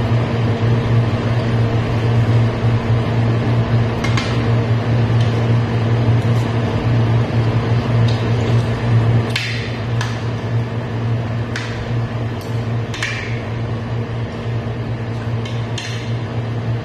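Spoon and fork clinking and scraping on a dinner plate about ten times, in short sharp taps, over a steady low hum.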